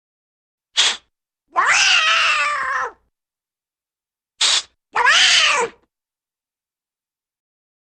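Cartoon cat sound effect heard twice: a short, sharp noisy burst, then a long yowling meow that rises and falls in pitch. The second yowl, about four seconds in, is shorter than the first.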